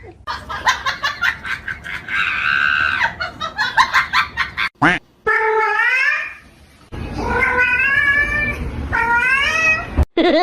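A cat meowing and yowling: three long wavering calls in the second half. Before them comes a run of sharp clicks and knocks.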